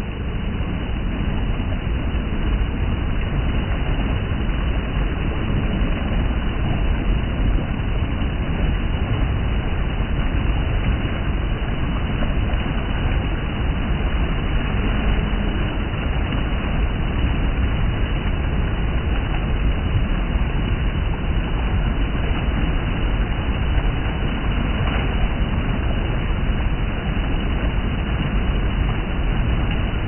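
Fast-flowing water rushing and churning over rocks and around a pair of bare feet, a loud, steady rush with a deep rumble.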